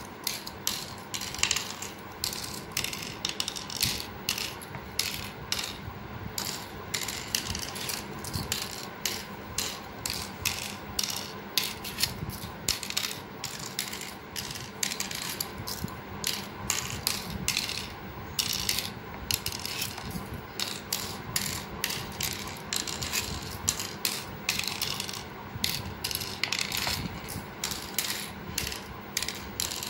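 Cowrie shells dropped one by one into the cups of a pallanguzhi board as a handful is sown round it: a steady run of light clicks, about two a second.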